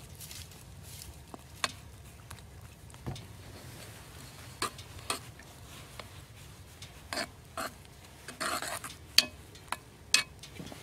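Spoon stirring cake mix and cherries in a cast-iron Dutch oven: scattered clicks and knocks as it strikes the pot, with a longer scrape about eight seconds in.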